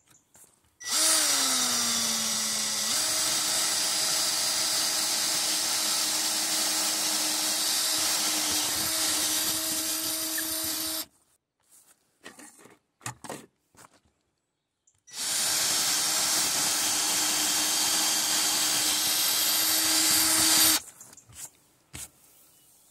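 Ryobi cordless drill boring through a camper trailer roof in two long runs, the first about ten seconds and the second about five, with a few light knocks in the pause between. In the first run the motor pitch sags as the bit bites, then picks up again about three seconds in and holds steady.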